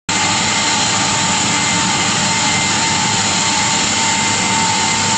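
A loud, steady machine hiss with a constant high whine running through it.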